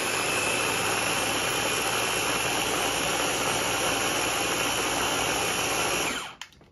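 Small Ninja food chopper running with its motor top pressed down, blending chickpeas and tahini into hummus: a loud, steady whir with a thin high whine over it. The motor cuts off and spins down about six seconds in.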